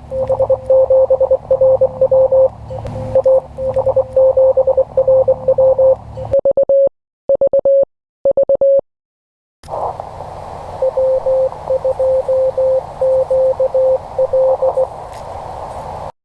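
Morse code (CW) from a ham radio transceiver: a single steady tone keyed in dots and dashes over receiver hiss and band noise. About six seconds in the hiss cuts out and a few clean keyed characters sound. The noisy receiver audio then returns with more Morse.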